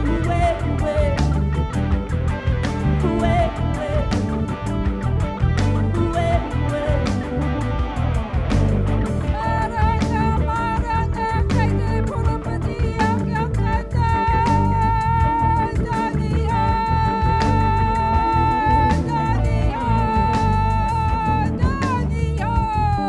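Live worship band playing an instrumental passage: bass, drums and guitar keep a steady groove, and from about halfway a high, held melody line comes in, sliding down in pitch near the end.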